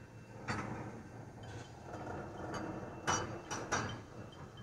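Railroad tank cars rolling slowly past, a low rumble under sharp metallic knocks from the wheels, trucks and couplers: one about half a second in and three louder ones in quick succession about three seconds in.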